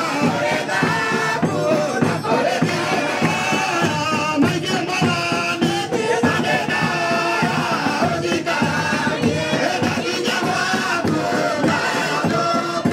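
Several voices singing a song together through microphones, backed by a large hand-beaten drum keeping a steady beat.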